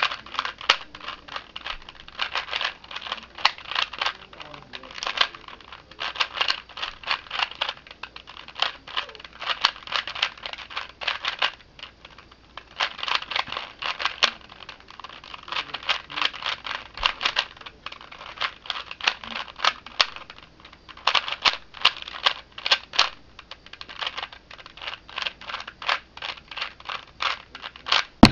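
Cube4You 3x3 speed cube being turned rapidly during a solve: quick plastic clicking of the layers in runs of a few seconds, broken by brief pauses.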